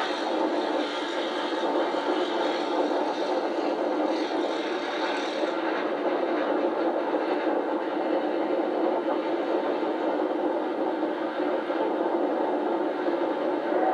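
Steam trains running side by side at speed: a Victorian Railways R class steam locomotive and its carriages on the next track, heard from the moving train alongside, giving steady continuous train noise. It is played back from old videotape and refilmed off a TV, so it has no deep bass.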